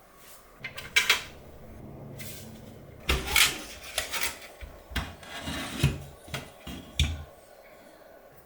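Computer parts being handled and fitted: a run of sharp clicks and knocks among scraping, rubbing sounds, loudest about one second and about three seconds in.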